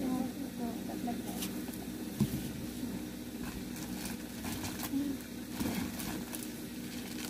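Plastic-wrapped toiletries and bottles rustling and knocking as they are lifted out of a cardboard box, with scattered short clicks that gather in the second half, over a steady low hum.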